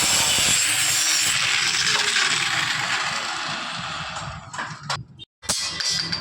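Angle grinder grinding steel: a steady, harsh grinding noise that fades from about three seconds in and breaks off near five seconds, followed by a few short sharp sounds.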